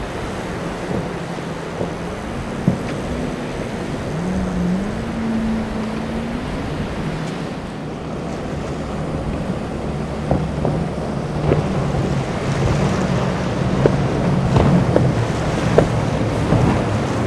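Boat engines running hard through rough surf, with the rush of spray and waves and wind buffeting the microphone. About four seconds in an engine's pitch climbs as it revs up. In the second half a center-console boat's triple Mercury 350 outboards run at speed, with sharp slaps of the hull on the waves.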